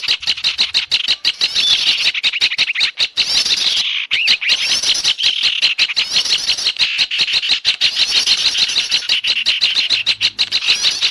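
A dense, rapid chorus of small songbirds chirping and chipping, the busy mixed call of garden birds used as a bird-lure recording, with a brief break about four seconds in.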